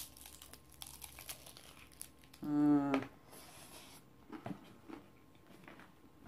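Biting into and chewing a crispy baked-cheese taco shell: a run of small crunches and crackles, a short hummed "mmm" about two and a half seconds in, then more crunching chews.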